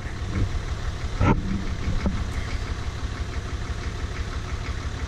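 Backhoe engine idling steadily, with one short knock about a second in.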